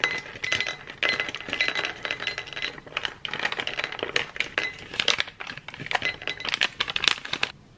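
Small chocolate-coated protein balls pouring from a foil snack pouch into a ceramic bowl: a quick run of clicks and clinks as they drop and bounce in the bowl, with the pouch crinkling as it is shaken. The clinking stops suddenly near the end.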